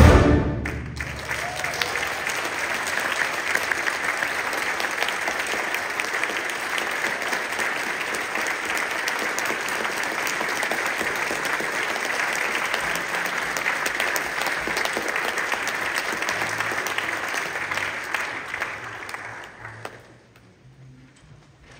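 The orchestra's final chord cuts off within the first second. A long round of audience applause follows and dies away near the end.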